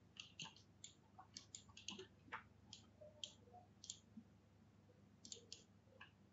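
Faint clicking of a computer mouse: many short, irregularly spaced clicks, over a low steady hum.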